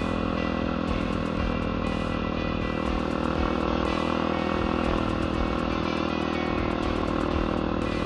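Yamaha WR450 single-cylinder four-stroke dirt bike engine running at a steady speed.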